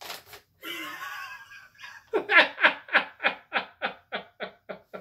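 Paper rustling as a folded sheet is opened, then a man laughing hard in a long run of short 'ha's, about three a second, starting about two seconds in and slowly growing quieter.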